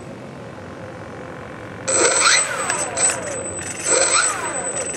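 Radio-control steering servo whining in two short bursts as it swings the nose wheel, one about two seconds in and one about four seconds in, with a falling whine in each. A steady hiss comes before the first.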